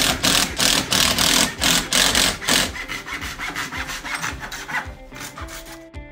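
Rhythmic rasping strokes of hand work on a gypsum board patch, about three a second, loud at first and fading after two or three seconds, with soft acoustic background music under them.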